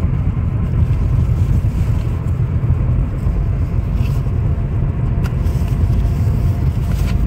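Steady low rumble of car cabin noise, with a few faint clicks from the cardboard box being handled.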